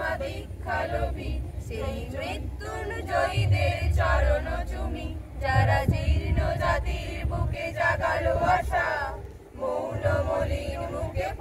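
A group of young female cadets singing a Bengali patriotic song together, unaccompanied, pausing briefly between lines.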